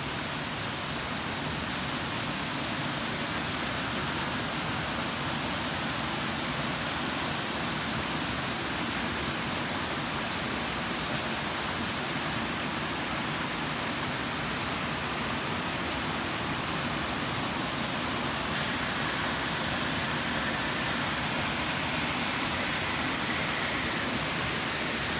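Rocky woodland stream rushing over small cascades: a steady, even rush of water.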